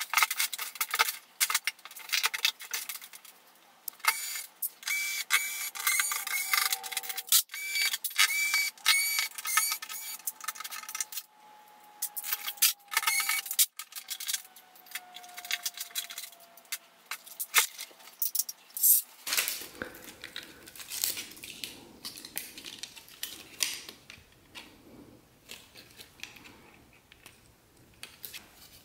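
Dense, rapid clicking and clinking of metal and plastic parts as a flat-screen TV is taken apart. In the first half a run of short, quickly repeated chirps comes through. The sound changes about two-thirds of the way through and thins out toward the end.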